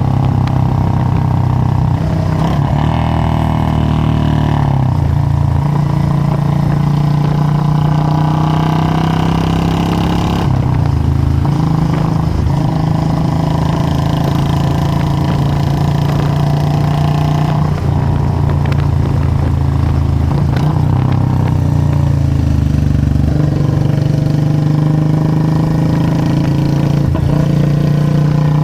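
Royal Enfield Meteor 350's single-cylinder engine running through a Punjabi-style aftermarket exhaust, its pitch shifting up and down several times.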